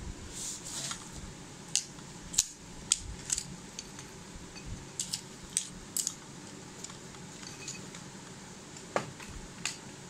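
Scattered sharp clicks and clinks of metal and plastic parts as a table fan's motor is handled and fitted onto its plastic neck and arm, with a soft rustle at the start.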